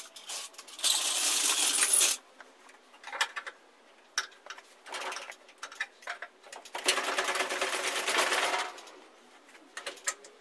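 Metal hand tools working against the engine while a bolt is being started: scattered light clinks and knocks, with two longer rasping stretches, one about a second in and one past the middle.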